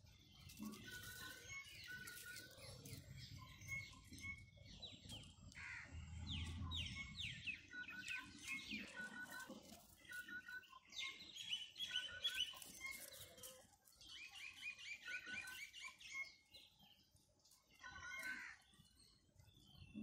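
Small birds chirping and singing, with repeated runs of quick, high falling notes and shorter chirps through the whole stretch.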